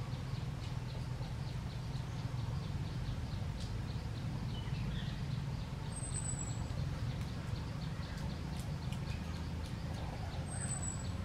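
Outdoor background: a steady low rumble with a faint rapid ticking, about four to five ticks a second, and two short high-pitched chirps, one about halfway through and one near the end.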